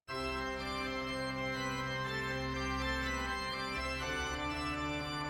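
Background music led by a sustained organ-like keyboard chord that starts abruptly, with the chord changing a couple of times.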